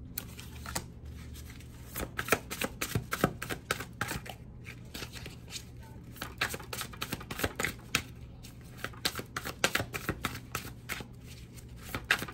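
A tarot deck being shuffled by hand: a run of quick, irregular card clicks and flicks, busier after the first couple of seconds.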